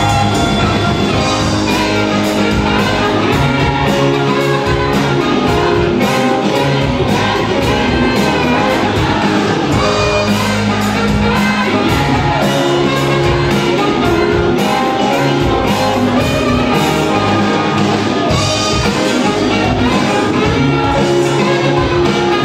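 Live band playing: saxophone over drums, bass guitar, electric guitar and keyboard, with a steady drum beat.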